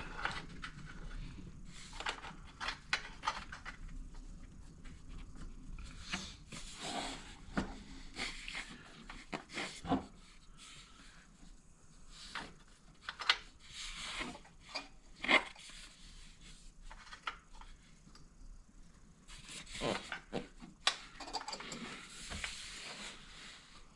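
Hand work on snowmobile parts: scattered light clicks, knocks and short scrapes of metal parts and springs being handled and fitted, irregular and without any running engine.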